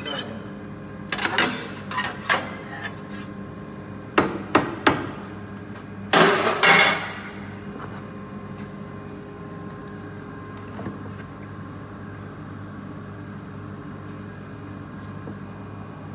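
Baader 694 fish bone separator running with a steady hum, while a metal scraper knocks and scrapes against its stainless steel outlet chute in bursts: a few clatters in the first two or three seconds, three sharp knocks about four seconds in, and a longer scrape around six seconds. For the second half only the machine's hum remains.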